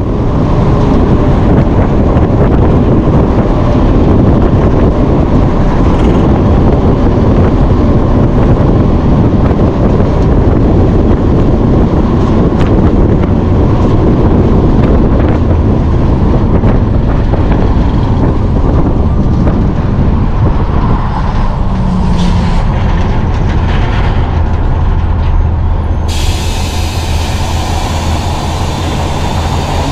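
Peterbilt 379 semi truck's diesel engine running under way, a loud steady drone with road noise. A higher hiss joins near the end.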